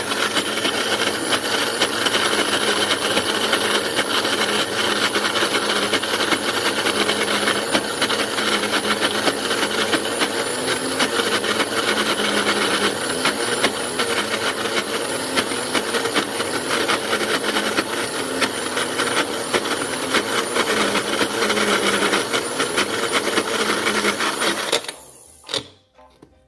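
Magic Bullet blender motor running loud and steady while it purees corn kernels into a thick batter, then cutting off near the end.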